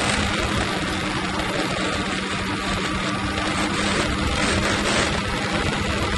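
Snowmobile running at a steady cruising speed along a trail, heard from the rider's seat: an even engine hum over a constant rushing noise, with no change in pace.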